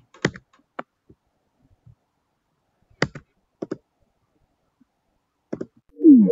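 A few sharp, separate computer mouse clicks, then near the end a short electronic tone that glides down and settles into two held notes.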